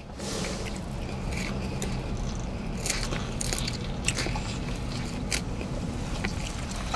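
A person chewing a mouthful of salad, with a few crisp crunches scattered through, over a steady low hum.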